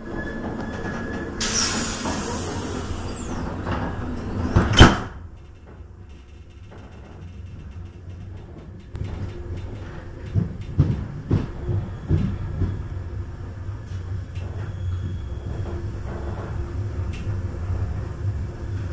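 A passenger train carriage door slides with a falling squeal and shuts with one loud bang about five seconds in. After that the carriage runs on with a steady low rumble and scattered clacks from the wheels and track.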